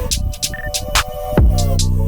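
Electronic background music with a steady drum beat; a deep bass note drops in about one and a half seconds in and holds.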